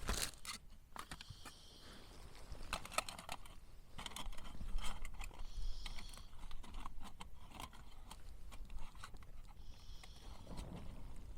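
Light clicks and knocks of camping gear being handled while a brew is being set up, with a short high chirp three times, about every four seconds.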